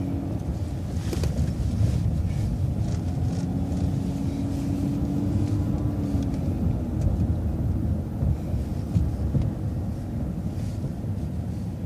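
Shuttle bus driving along a street: engine and drivetrain running with low road rumble, and a steady whine held for a few seconds in the middle before it fades.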